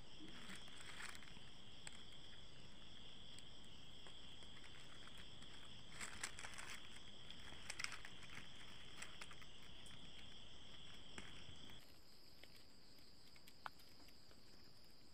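Steady high-pitched trilling of crickets, which drops away and is replaced by a softer, higher trill about twelve seconds in. A few faint rustles and clicks come from plastic weaving strips being handled.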